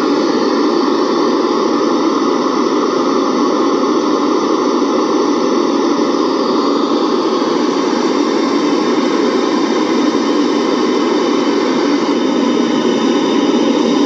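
Loud, steady test noise, a hiss with no pitch or rhythm, played through a car audio system while it is being tuned. It has no deep bass and is strongest in the lower middle.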